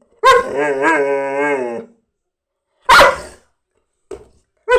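Cane Corso dog vocalising in play: a sharp bark runs straight into a long, wavering, drawn-out howl of about a second and a half. About three seconds in comes a single loud bark, and near the end a couple of short yips.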